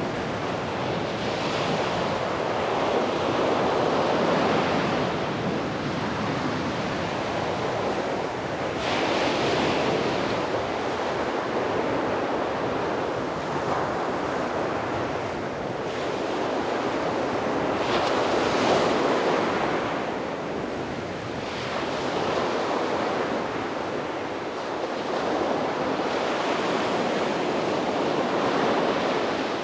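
Sea waves breaking on a beach: a continuous surf rush that swells with a brighter wash about every nine seconds.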